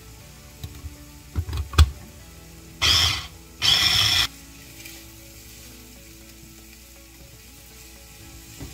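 Shrimp frying in a pan under a faint sizzle. Around the first two seconds a utensil knocks against the pan a few times, with one sharp knock. About three and four seconds in come two short, loud hissing bursts as the shrimp are stirred.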